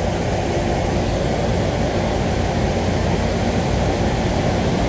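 Steady low rumble of a large indoor rink's air handling and room noise, with no distinct hits or calls standing out.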